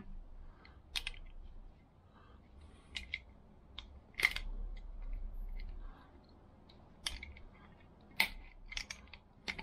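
Light metallic clicks and taps from handling a Vespa PX200 carburettor and a screwdriver while working its choke lever, scattered irregularly, the sharpest a little over four seconds in.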